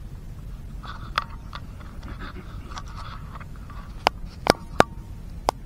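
Hands sorting through a freshly landed catch of white prawns and small fish: scattered light scrapes and sharp clicks, a few louder clicks coming close together about four to five seconds in, over a steady low rumble.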